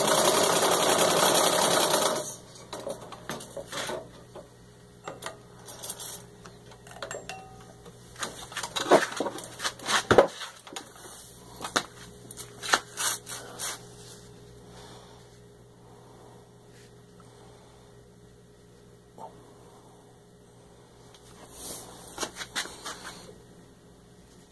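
1919 Singer 127 sewing machine running at full speed through six layers of denim, stopping about two seconds in. Then sharp knocks, clicks and cloth rustling as the stitched denim is pulled out from under the needle and handled, a few knocks louder than the running.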